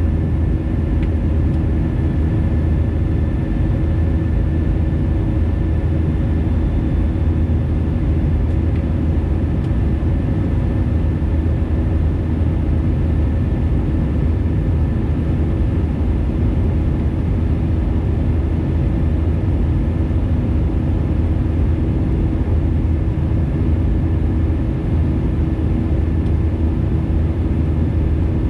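Airbus A320neo's jet engines running steadily, a loud, even rumble with a few faint steady tones over it.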